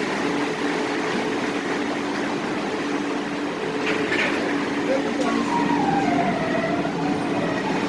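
Staten Island Ferry's engines and machinery running with a steady low hum as the boat docks. About halfway through, a drawn-out tone falls in pitch over a second or so.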